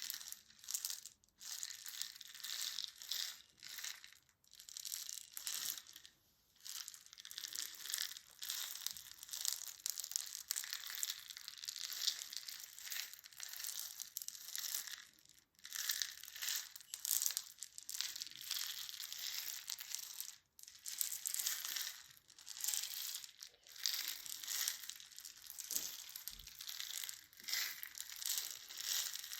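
Close-up crinkling and crumpling, a dense crackly rustle high in pitch that keeps going with brief pauses now and then.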